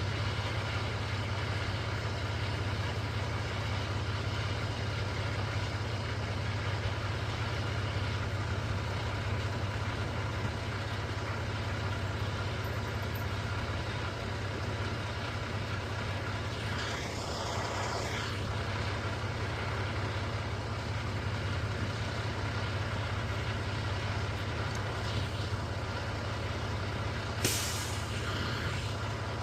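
Heavy diesel engine of a concrete mixer truck idling steadily, with a brief noisy burst about two-thirds of the way through and a sharp, short air hiss near the end, like an air brake letting off.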